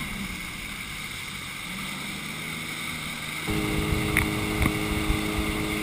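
Motorboat engine running at speed, with rushing water from the wake; the engine's steady hum becomes louder and clearer about three and a half seconds in.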